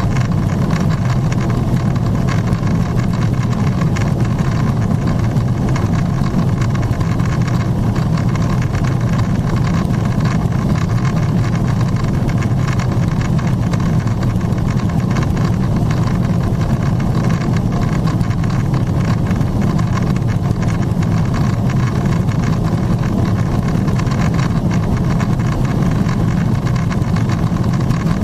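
Steady cabin noise inside a Boeing 777-300ER in its climb: the even hum of its GE90-115B turbofans mixed with airflow over the fuselage, deepest and strongest low down, with no changes.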